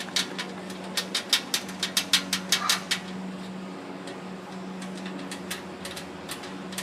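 Sharp clicking taps, about a dozen in the first three seconds, with a short bird call near the three-second mark, over a steady low hum.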